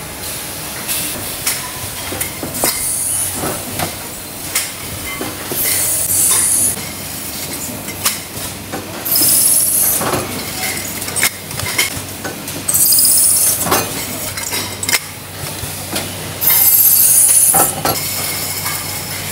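Metal-bottle factory machinery: steady clatter and metal clinking. About every three to four seconds comes a loud hiss, about a second long.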